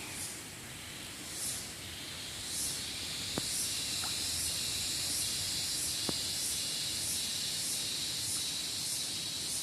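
Cicadas calling in a forest: a steady high buzz that pulses about every three quarters of a second and grows louder a couple of seconds in. Two faint clicks are heard in the middle.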